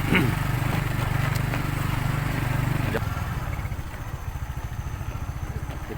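A vehicle engine runs steadily, then about three seconds in it drops to a quieter, pulsing idle as the vehicle slows.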